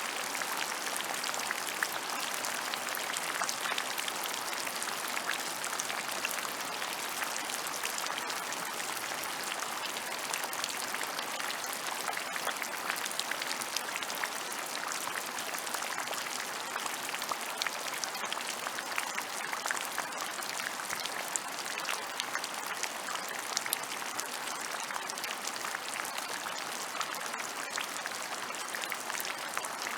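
Steady rain falling on open ground, a dense even patter of many small drops with no let-up.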